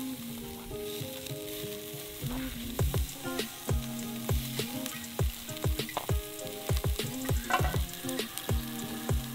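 Chicken sizzling on a charcoal barbecue grill, under background music whose steady beat comes in about two and a half seconds in.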